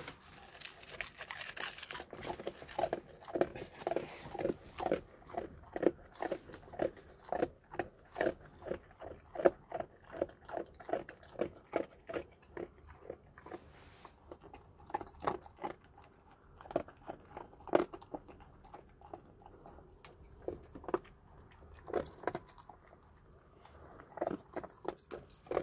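A dog crunching and chewing dry cat kibble, quick rhythmic bites of about two or three a second, thinning out to scattered crunches with short pauses in the second half.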